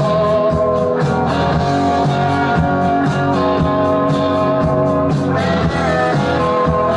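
Background music: a guitar-driven rock song with a steady beat.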